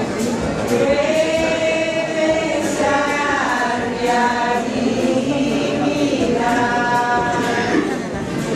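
A congregation singing a hymn together, holding long notes.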